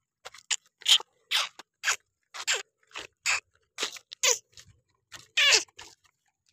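Footsteps crunching on a gravelly dirt road at a walking pace, about two steps a second, with one longer scraping step about five seconds in.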